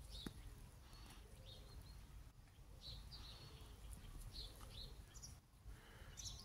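Near silence outdoors: faint background ambience with a few short, high chirps scattered through, from distant birds.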